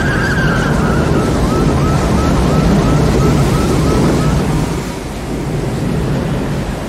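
Loud roaring wind of a tornado bearing down, as heard in a film sound mix, with a thin wavering whine above it. The roar eases about four and a half seconds in.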